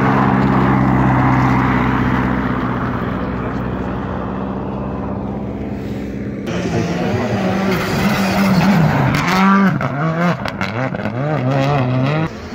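Rally car engines on an ice track: one car passes at steady revs, then from about halfway another revs up and down hard through the corner.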